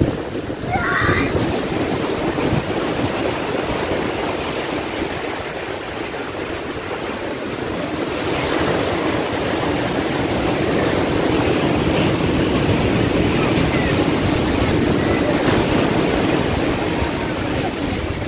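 Ocean surf breaking and washing up the beach, a steady rush of waves that swells a little in the second half.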